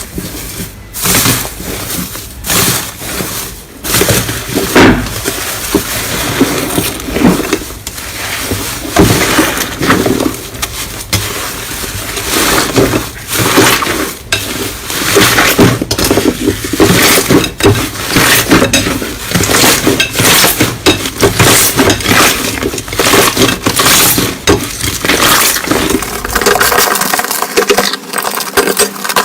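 Slime being pressed and squeezed by hand, giving a dense, continuous crackling with many small sharp clicks and pops.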